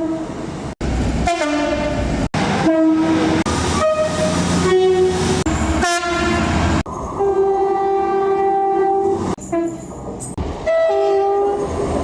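A rapid run of train horns, clip after clip spliced together: about eight separate horn sounds at different pitches, each cut off abruptly. The longest, near the middle, lasts about two and a half seconds.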